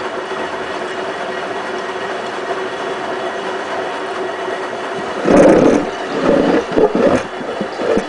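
Hotpoint Ultima WT960 washing machine running a 95 °C boil wash: a steady motor hum with a few fixed tones, then a little over five seconds in, louder irregular surges of sloshing as the drum turns the hot wash water.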